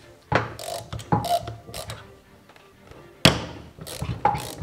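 A socket ratchet working the bolts of a BMW N42/N46 water pump and power steering pump unit: sharp metal knocks and short bursts of ratchet clicking, several times, over background music.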